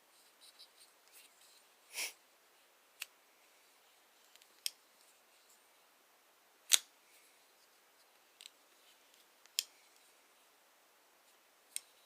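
Kershaw Gravel 2065X folding knife being handled: a slow series of sharp, high metallic clicks a second or two apart from the blade and frame lock. The loudest click comes a little past halfway.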